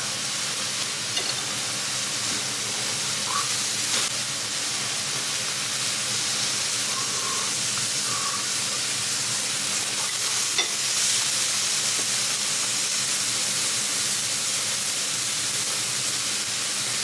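Meat sizzling on a hot iron griddle: a steady hiss, with a couple of faint clicks.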